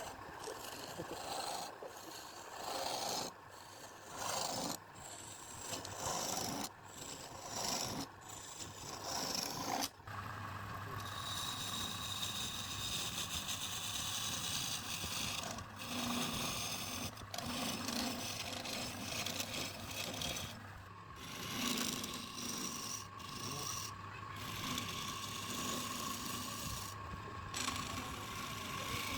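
Wood being rasped and rubbed in irregular strokes. About ten seconds in, a steady machine hum starts and runs under the continuing rubbing and scraping on the wood.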